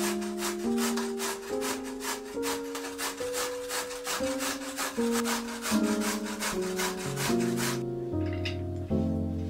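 Carrot being grated on a stainless steel box grater: quick, even rasping strokes, several a second, stopping about eight seconds in. Background music with piano-like notes plays underneath.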